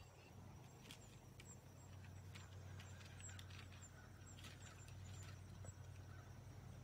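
Faint outdoor ambience, close to silence: a steady low hum with scattered faint high chirps and ticks.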